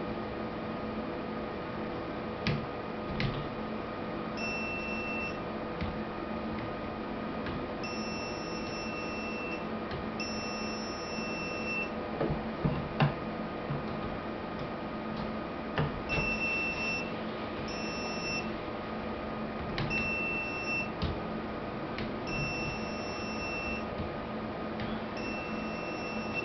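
Intermittent high-pitched electronic beeps, each lasting about half a second to two seconds, at irregular spacing over a steady electrical hum. A few sharp knocks and clicks are scattered among them.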